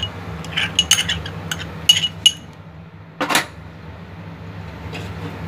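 Metal spoon clinking against a glass bowl and a metal cooking pot while paste is scraped out onto raw mutton chops: a quick run of sharp clinks in the first two seconds or so, then one short scrape about three seconds in.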